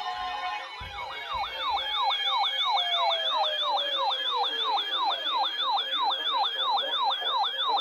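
Electronic siren yelping fast, about three rises and falls a second, starting about a second in. Over the first few seconds a second, steady tone slides slowly down in pitch beneath it.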